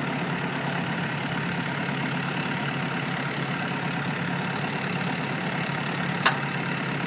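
Tractor engine idling steadily, with a single sharp click about six seconds in.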